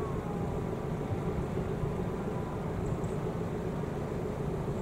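Wind rumbling on the microphone over a steady low engine drone.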